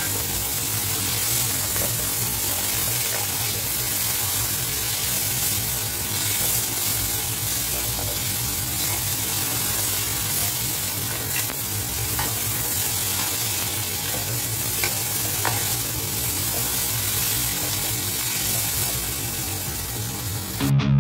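Stir-fry of celery, pork and tofu strips sizzling steadily in a wok as a wooden spatula turns it, with a few light clicks of the spatula against the pan over a steady low hum. The sizzling cuts off suddenly near the end.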